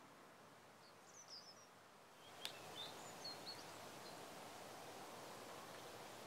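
Near-silent outdoor ambience with a few faint, brief bird chirps, a single sharp click about two and a half seconds in, and a soft steady hiss that rises a little after the click.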